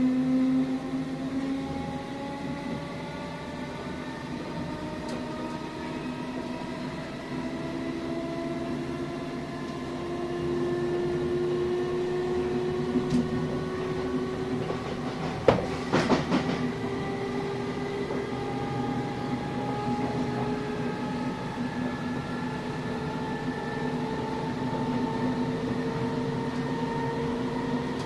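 Class 455 electric multiple unit running, heard from inside the carriage: a rumble under a whine of several tones that slowly rises in pitch as the train gathers speed. A single sharp clack comes about halfway through.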